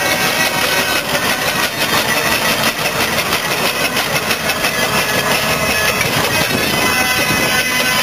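1914 Wallis & Steevens EXP traction engine running as it pulls a loaded trailer away. The sound is a steady, dense noise with a droning, music-like tone mixed in.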